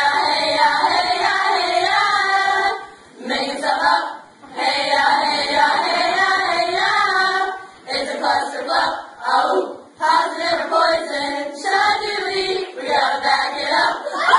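A small group of young women singing together in sung phrases, broken by short pauses.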